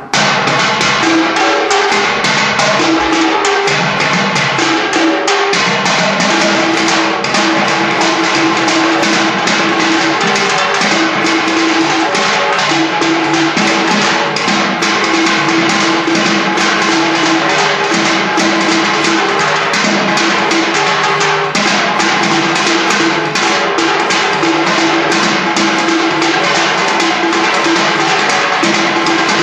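Percussion-driven music with a fast, steady beat of sharp strokes and a repeated held low note over it.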